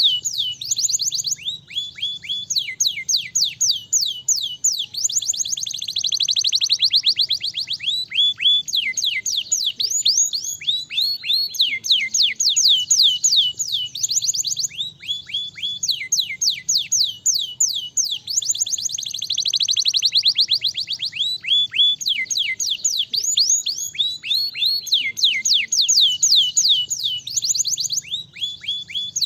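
Domestic canary singing: fast trills of repeated whistled notes, each sliding down in pitch, strung together in long rolling phrases with brief breaks between them.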